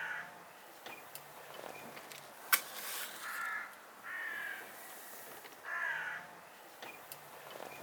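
A bird calling four times outdoors, each call about half a second long, with one sharp click about two and a half seconds in.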